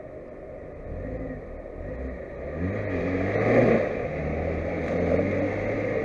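Lada Niva 21214's engine revving under heavy load as it tries to climb out of a muddy stream, the wheels spinning in mud and water with the front end not gripping. The revs rise about two and a half seconds in and stay up.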